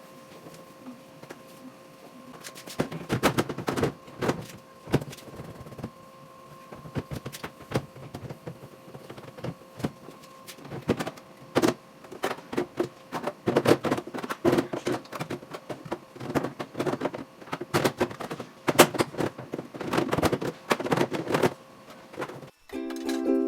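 Irregular clatters and knocks of household items and containers being handled and set down, over a faint steady hum. Ukulele music starts near the end.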